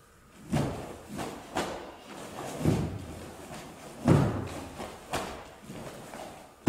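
Bare feet thudding and stamping on a wooden sports-hall floor, with the snap of a karate gi, as karate techniques are performed: a run of about eight sharp hits, some close together, some a second or more apart, each with a short echo.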